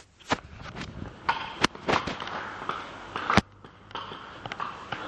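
Footsteps on pavement mixed with handling knocks on a handheld camera carried while walking: irregular sharp knocks over a rustling background, the loudest about one and a half and three and a half seconds in.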